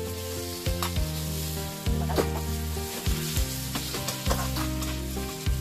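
Food sizzling in a wok as chopped green vegetables are tipped in and stirred with a spatula, the spatula clicking and scraping against the pan every second or so.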